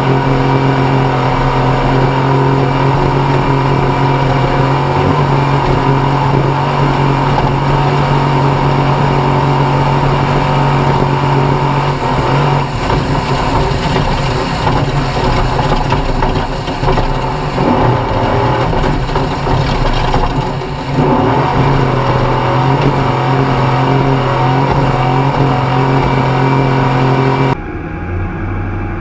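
Off-road race vehicle's engine running hard at a steady, high speed. About halfway through, the note turns uneven and wavers for several seconds as the throttle and speed change, then steadies again. Near the end the sound suddenly drops, quieter and duller.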